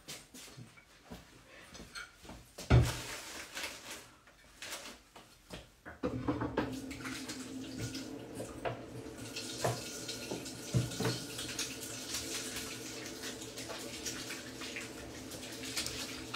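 A few scattered knocks and clatters, one sharp knock about three seconds in. Then, about six seconds in, a tap is turned on and water runs steadily with a rushing hiss.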